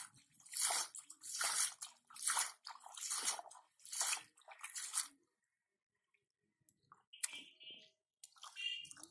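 Hands scooping and flinging water and mud in a shallow muddy puddle, a regular splash a little more than once a second, stopping about five seconds in; fainter, scattered wet splashes follow near the end.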